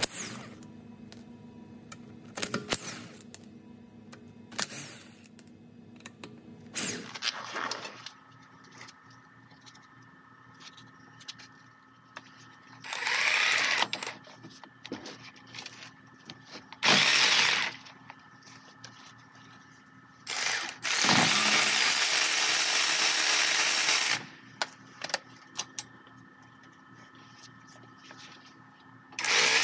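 Power wrench running in three bursts, the last about three seconds long, spinning out the 13 mm bolts of a rear brake caliper.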